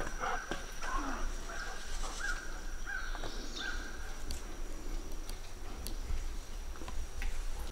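A series of short, high, even-pitched animal cries, each starting with a quick upward slide, roughly one a second for the first few seconds and then trailing off, with scattered light clicks.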